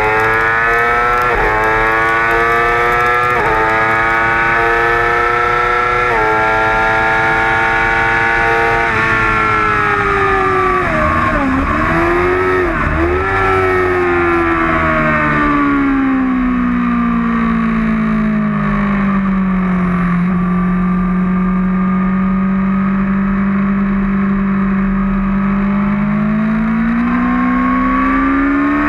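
Yamaha R6 600 cc inline-four sport-bike engine under race load. The revs climb through several quick upshifts over the first few seconds, then fall away with a couple of sharp dips and rises around eleven to thirteen seconds in. The engine runs lower and steadier for a long stretch and rises again near the end, with wind rushing over the bike.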